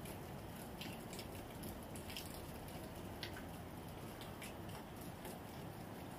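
Torrential rain falling: a steady hiss of heavy downpour with scattered sharp drips and splashes at irregular intervals, roughly two a second.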